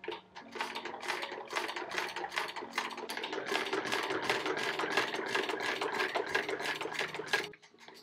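1888 Singer 12 transverse-shuttle sewing machine, hand-cranked, stitching through cotton fabric with a rapid, regular clicking of needle bar and shuttle, several strokes a second. The clicking stops abruptly shortly before the end.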